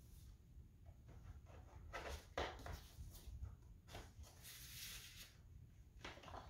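Faint rustling and sliding of paper and cardboard as a vinyl record in its sleeve is pulled out of an LP jacket and handled, in short bursts about two seconds in and again from about four to five seconds in.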